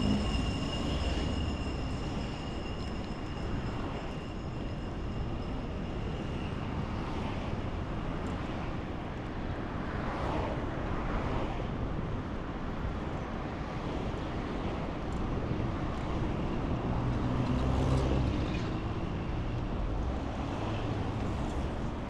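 Rumbling city traffic and wind noise on the microphone of a bicycle riding along a busy avenue, with a thin, steady high whine over the first seven seconds or so.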